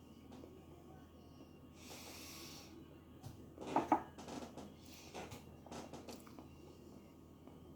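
Close-up eating sounds of tteokbokki being eaten: a breathy slurp about two seconds in, a louder slurp just before the middle, then a run of short wet chewing clicks.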